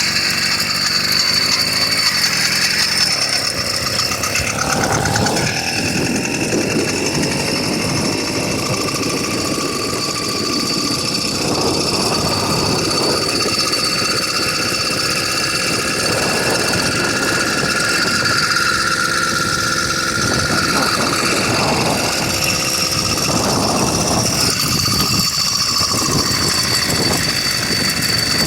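100cc two-stroke motorized-bicycle engine running, its pitch rising and falling with the throttle.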